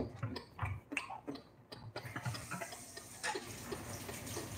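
A few light clicks and knocks, then about two seconds in a kitchen tap comes on and runs steadily into a stainless steel sink while a hand is rinsed under the stream.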